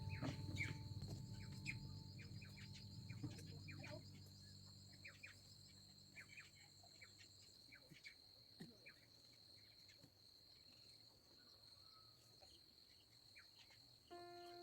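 Faint outdoor ambience: a steady high insect trill with scattered short bird chirps. Background music fades out over the first few seconds and comes back near the end.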